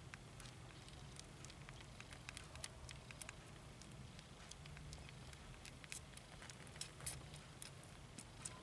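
Faint, irregular clicking and smacking of nursing kittens suckling at their mother's teats, over a low steady hum.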